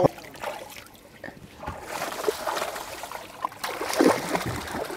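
Water splashing and sloshing against a boat's hull as a small hooked shark thrashes at the surface beside it, starting about two seconds in.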